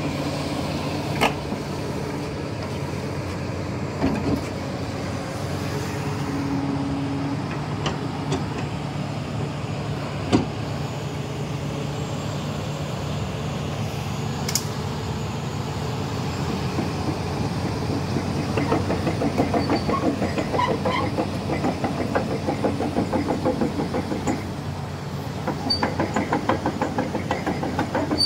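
Kobelco SK380 XD LC excavator's diesel engine running steadily during a track travel check. About two-thirds of the way in, the machine moves off and its steel crawler tracks clatter rhythmically. The clatter eases briefly and then picks up again near the end.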